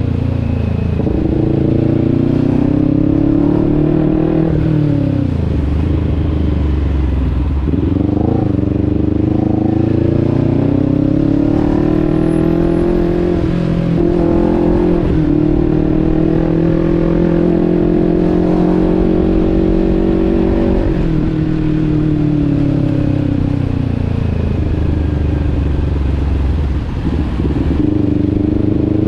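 Motorcycle engine running under way, its pitch climbing as it accelerates and dropping sharply several times, at about 5, 8 and 21 seconds in, as with gear changes or easing off the throttle.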